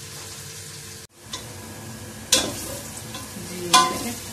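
Sliced onions sizzling as they fry in oil in a large metal pot, on their way to light brown for the curry base. The sound cuts out briefly about a second in, then the ladle stirring them clanks sharply against the pot twice.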